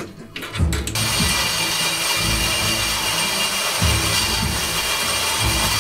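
Vertical band saw cutting a steel square tube: a steady sawing noise from about a second in. Background music with a regular beat plays over it.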